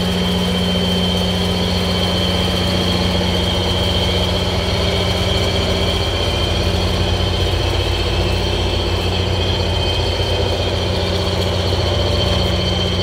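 EMD GP39H-2 diesel locomotive idling steadily, a constant low engine hum with a thin high whine over it.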